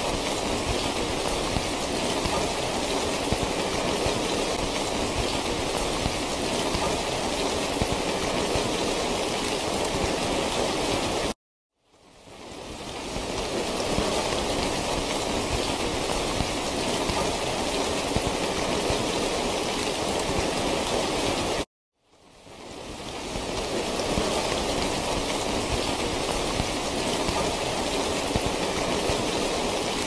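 Steady, dense rain hiss with no pauses in the rainfall itself. It cuts out suddenly to silence twice, about a third and two thirds of the way through, and fades back in over a couple of seconds each time.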